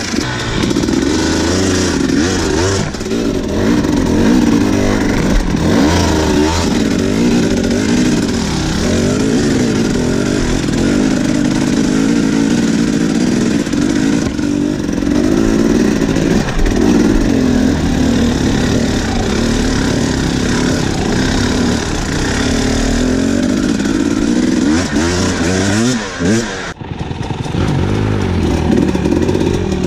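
Two-stroke single-cylinder engine of a KTM 250 EXC enduro bike revving up and falling back over and over under load on a steep rutted climb. Near the end the sound drops out for a moment, then resumes.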